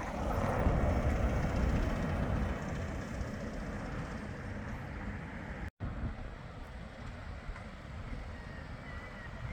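Bombardier Flexity 2 tram running past on street track, its rumble loudest at first and easing off over the next few seconds, amid general street noise. The sound drops out for an instant about six seconds in.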